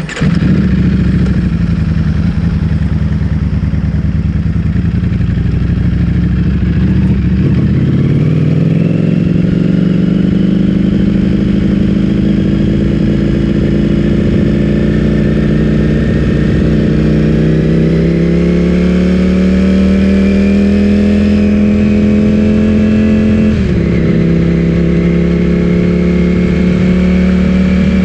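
Ducati Streetfighter V4S's 1103 cc V4 engine running through an Akrapovic full-system exhaust, loud from its sudden onset. It holds a steady pitch for several seconds, then climbs slowly and steadily, drops sharply once near the end and picks back up.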